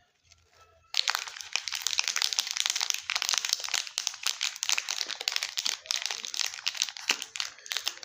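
Candy wrappers crinkling and crackling as they are handled and torn open. The dense crinkling starts suddenly about a second in and runs on as many small crackles.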